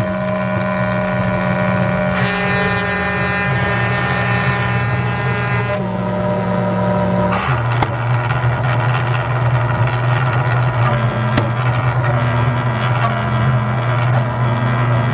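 Satan's Calliope, a fire-breathing calliope art car, sounding loud held chords on its pipes, played from a keytar, with the chords shifting a few times. About halfway through it drops to a low drone with short higher notes stepping over it, under a rushing roar from its flames.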